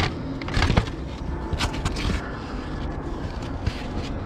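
Hard plastic of a BMW's lower active grille shutter housing and the polystyrene bumper absorber scraping and knocking as they are handled by hand: several short scrapes and clunks, the loudest at the very start and about half a second in.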